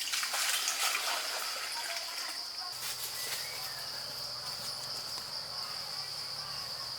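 Insects trilling outdoors, one steady high-pitched buzz that does not break, with brief noisy rustles over it near the start and again about three seconds in.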